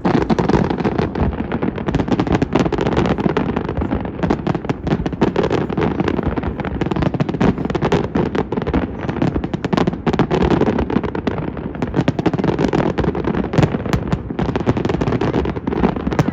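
Fireworks display: a continuous, dense barrage of rapid bangs and crackling with no break.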